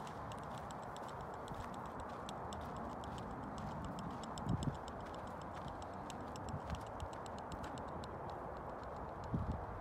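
Footsteps on a dry dirt trail, with rapid light clicking and crackling over a steady rushing noise; two heavier low thumps, about four and a half seconds in and near the end.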